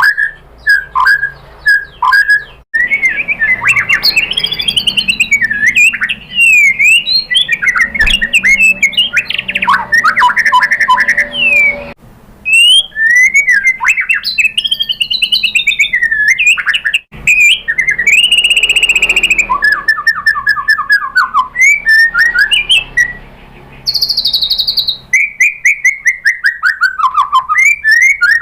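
White-rumped shama (murai batu) singing a long, varied song of rapid chirps, whistled rising and falling notes and fast trills, broken by a few short pauses. It is the full, loud song that a shama in top form delivers, rich in mimicked phrases.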